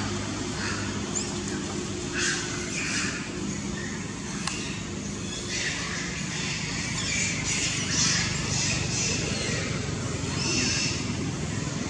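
Monkeys, long-tailed macaques, giving a series of short, high-pitched squealing cries, thickest in the middle of the stretch, over a steady low hum.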